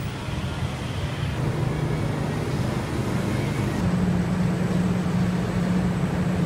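Street traffic noise with a steady low engine hum, which grows louder about four seconds in.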